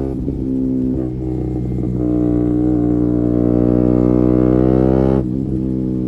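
2017 KTM Duke 125's single-cylinder four-stroke engine through an Akrapovic exhaust with a GPR de-cat link pipe, under way on the road. The engine runs unevenly for about a second after the throttle comes off, then pulls at a steady, slowly climbing pitch, and drops off suddenly about five seconds in.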